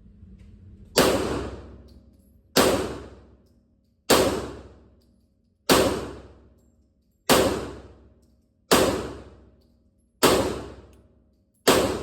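Gunshots fired one at a time at a steady pace, about one every second and a half, eight in all, each shot sharp and loud and echoing as it dies away.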